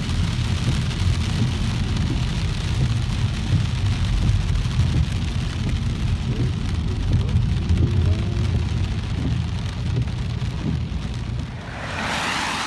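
A car's engine and tyres rumbling on a wet road while driving in rain, with a steady hiss of rain and spray. Near the end there is a short rush of louder hiss.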